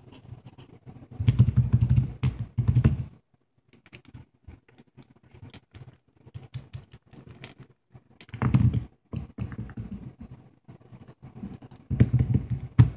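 Fingertips tapping and swiping on a Samsung Galaxy S3's touchscreen in small irregular clicks, with three louder spells of knocking and rubbing as the phone is gripped and moved on the table.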